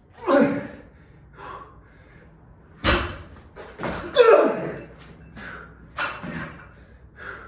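Hard, gasping breaths of a lifter recovering between heavy barbell attempts, with one sharp, heavy thud about three seconds in.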